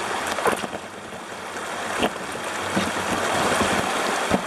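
Rushing river water around a kayak, growing louder toward the end, with a few short sharp knocks.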